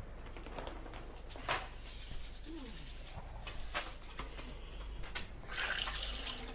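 Gusting wind with scattered rattles and knocks, swelling into a louder rushing gust near the end.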